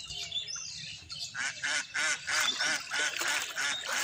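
A bird calling in a rapid run of short calls, about five a second, starting about a second in.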